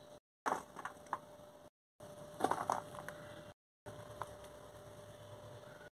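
Quiet knife cuts and soft taps as long green brinjals are sliced into rounds, a few separate clicks over a faint steady hum. The sound cuts out completely three times.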